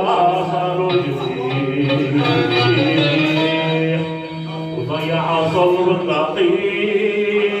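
Live music with a plucked string instrument and melodic lines that glide in pitch.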